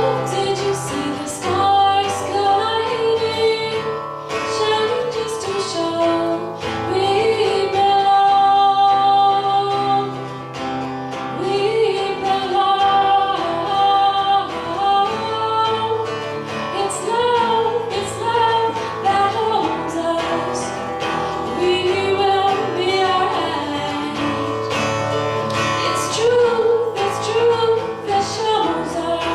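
A female voice singing a melody over acoustic guitar accompaniment.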